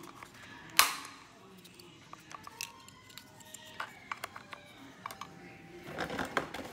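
Kitchen utensil clinks and taps on glassware, with one sharp click about a second in and scraping and handling noise near the end.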